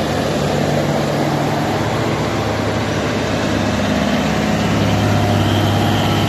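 Large farm tractor's diesel engine running steadily up close, its low note changing a little about four seconds in.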